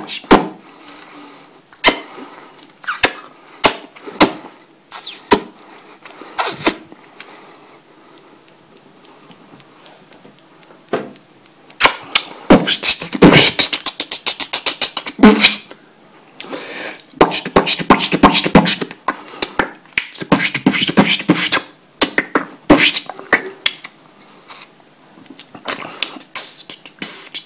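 A man beatboxing: sharp percussive mouth sounds made with lips, tongue and breath, a few scattered hits at first, a pause of several seconds, then dense rapid runs through the middle, thinning out near the end.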